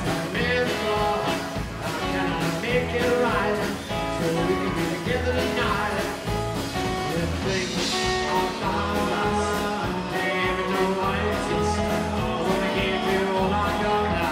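Rockabilly band playing live: a man singing over a strummed acoustic guitar and a drum kit keeping a steady beat.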